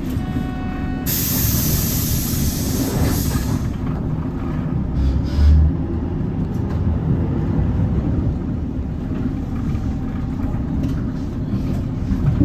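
Hyundai Green City diesel bus running, heard from inside. A short steady electronic tone sounds in the first second, then a loud hiss of released compressed air lasts about two seconds, typical of the bus's air brakes or air system. A low thump follows a few seconds later.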